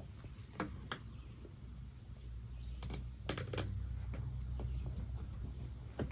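Scattered light clicks and taps of small hardware being handled while fitting a screen door closer, several coming in quick groups of two or three, over a low steady hum.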